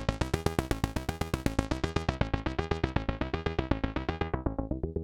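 AnalogFX SER-2020 analog synthesizer playing a fast repeating run of short notes, about six a second. The filter is open and bright at first, then closes down about four seconds in, turning the notes dull.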